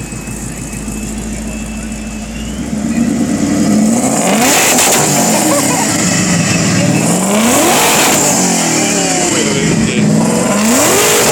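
Ford Mustang Shelby GT500 V8 idling, then revved hard three times, each rev a rising sweep that drops back. The exhaust is really loud, and the uploader suspects it is straight-piped.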